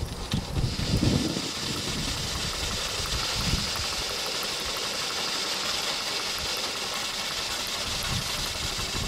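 Stuart model beam engine running on live steam: a steady hiss of steam that sets in about half a second in as the engine gets going, with a few low knocks in the first second and a half.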